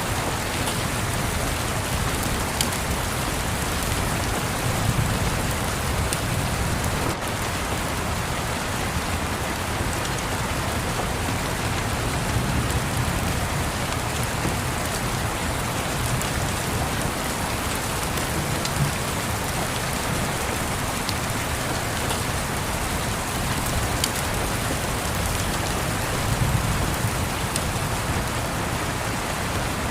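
Steady rain, with soft low rumbles of distant thunder swelling up a few times and occasional faint fireplace crackles.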